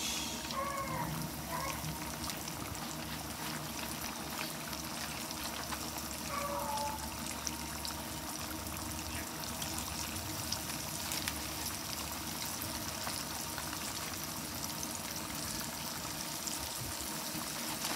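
Floured white perch frying in hot oil in an electric skillet: a steady sizzle with fine crackling as more pieces are lowered in.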